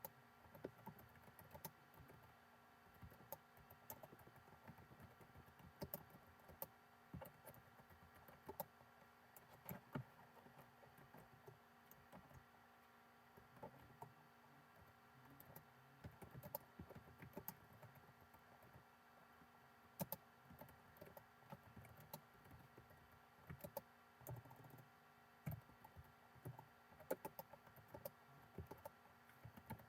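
Faint typing on a computer keyboard: irregular key clicks in quick runs, over a steady faint electrical hum.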